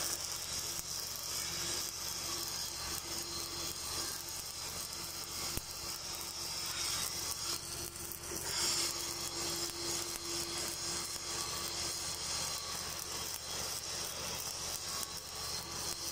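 Stick (shielded metal arc) welding with a 7018 electrode on a steel pipe seam: the arc gives a steady crackling sizzle. The welder says the machine's power is set a bit low.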